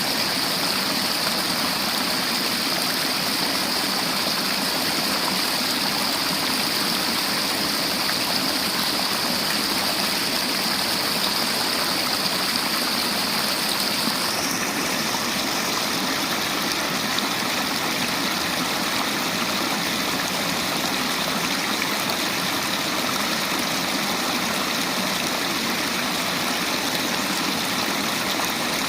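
River water flowing steadily, a continuous rushing hiss; its higher hiss changes slightly about halfway through.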